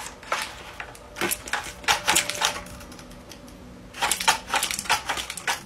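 Folded paper dragon puppet's jaws snapping shut again and again: quick runs of dry papery clacks, the busiest run about four seconds in.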